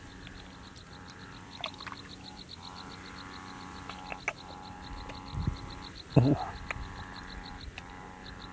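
Frogs calling over a fast, even, high-pitched pulsing that runs throughout, with a short, louder call about six seconds in.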